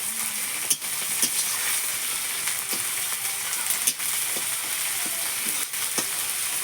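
Ground spice paste and tomato sizzling in hot oil, with a steady hiss, while a spatula stirs it and scrapes or clicks against the pan every second or so.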